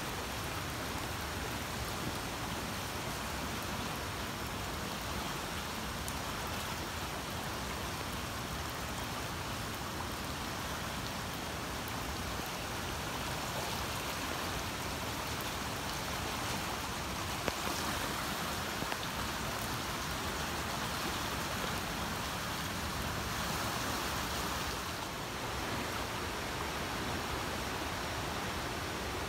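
Fast-flowing muddy floodwater rushing across a yard and down a swollen creek: a steady, unbroken hiss of moving water.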